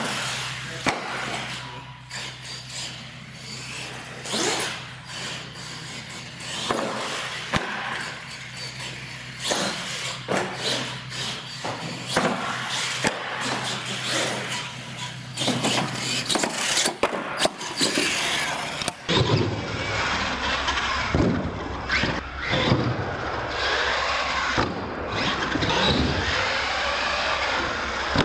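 Radio-controlled monster truck driving on a concrete floor, its motor revving up and down, with repeated sharp knocks and thumps as it hits ramps and lands.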